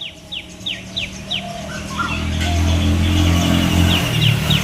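A small bird calling in a quick run of short, falling chirps, about three a second. From about two seconds in, a louder low steady hum comes up under it, and a few more chirps come near the end.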